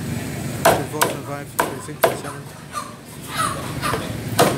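A butcher's cleaver chopping a chicken carcass on a wooden chopping block: about five sharp chops, unevenly spaced.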